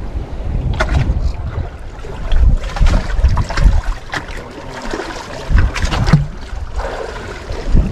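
Gusty wind buffeting the microphone aboard a small fishing boat on a choppy sea, with water washing against the hull and a few sharp knocks scattered through.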